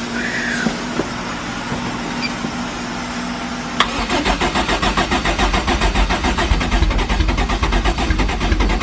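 Starter motor cranking a forged Toyota 5E-FE four-cylinder with big camshafts, a steady whine for about four seconds. The engine then catches suddenly and runs with a loud, pulsing idle.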